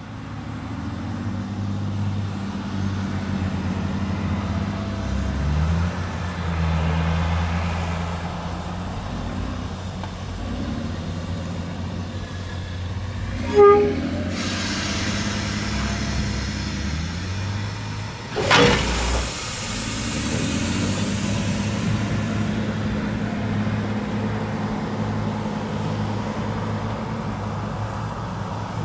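Heavy machinery at coal-train loading beside a JS steam locomotive: a steady low engine hum that rises and falls in pitch for a while, a short toot about halfway through, then two spells of rushing noise, the second starting with a loud bang.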